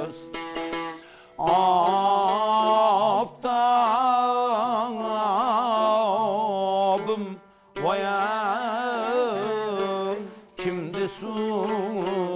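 A man singing an Uzbek maqom line in long phrases with ornate, wavering melismas, broken by brief pauses for breath, over a plucked long-necked lute holding a low steady drone.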